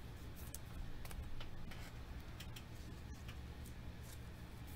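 Trading cards and their plastic sleeves handled by hand, giving irregular light clicks and ticks over a low, steady hum.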